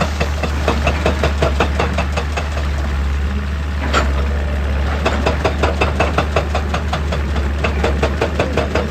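Hydraulic rock breaker on an excavator hammering rock in rapid regular blows, about five a second, over the steady drone of the diesel engine. The blows stop briefly partway through, with one sharp hit, then resume.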